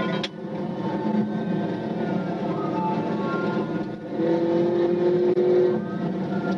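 Engine and tyre/road noise of a police cruiser in pursuit at high speed, heard through its in-car camera: a steady dense drone. About four seconds in, a louder steady engine note rises over it for under two seconds.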